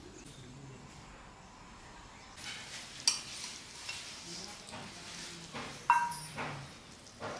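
Kitchen utensils clinking and soft wet scooping as carrot halwa is served into a bowl from a brass vessel. There are two sharp clinks, about three seconds in and, loudest, near six seconds, the second ringing briefly.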